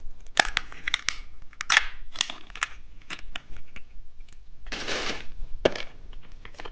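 Plastic candy wrapper crinkling and crackling in the hands in scattered sharp crackles, with a short tearing rustle about five seconds in.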